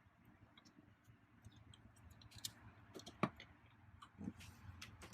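Scattered small clicks and taps of a T30 Torx screwdriver working an airbag bolt loose behind a steering wheel, with a sharper knock about three seconds in and a duller thud a second later.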